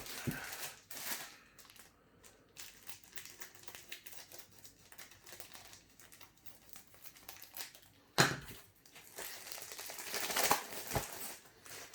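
Paper and plastic rustling and crinkling as LEGO instruction manuals and sticker sheets are handled, with many small scattered rustles. There is a sharp, loud rustle about eight seconds in and a denser patch of crinkling a couple of seconds later.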